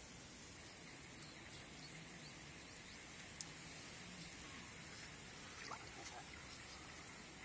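Faint, steady outdoor background hiss, with one sharp click about three and a half seconds in and a brief faint chirp near six seconds.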